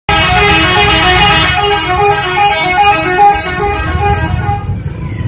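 A bus's 'telolet' multi-tone musical horn playing a quick tune of short notes that step up and down in pitch, over a low rumble; the horn stops near the end.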